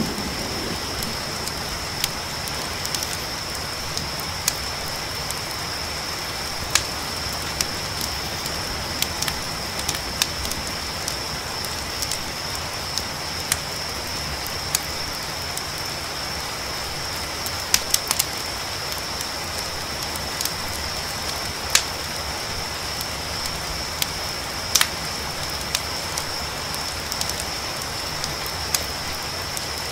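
Campfire crackling with scattered sharp pops, over a steady hiss, while crickets keep up a constant high trill.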